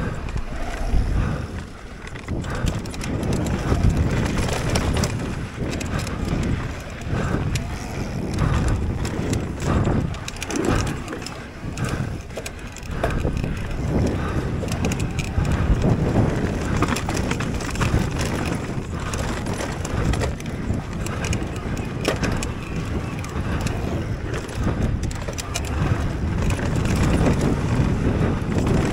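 Mountain bike descending a rough dirt trail, heard from a camera riding along: a steady rumble of tyres on dirt with many sharp clattering knocks from the bumps, and wind on the microphone.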